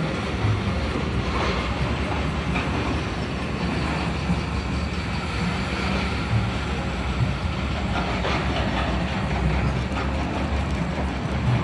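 Heavy drilling rig running at a construction site, a steady loud mechanical noise with a strong low rumble.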